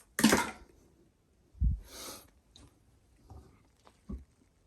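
Handling noises while taking apart an old sink faucet: a short sharp clatter, a dull thump about a second and a half in, then a brief rustle and a few small clicks.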